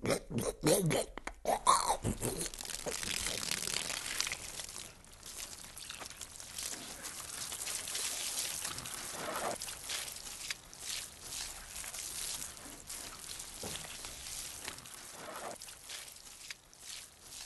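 Water pouring and splashing onto the ground, a steady hiss with uneven surges, after a few short sounds in the first two seconds.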